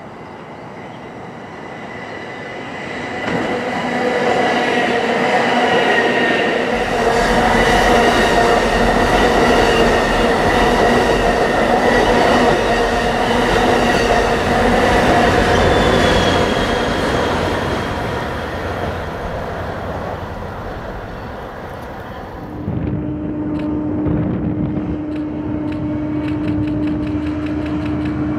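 Amtrak Pacific Surfliner passenger train approaching and passing close by, its bilevel cars rolling over the rails with a loud steady rumble and a high whine, then fading away. About three quarters of the way through it changes abruptly to the steady low hum of a BNSF double-stack freight train's diesel locomotives.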